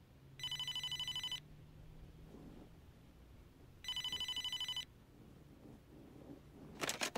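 Bedside telephone ringing twice, each ring a fast warbling trill about a second long. Near the end there is a short clatter as the receiver is picked up.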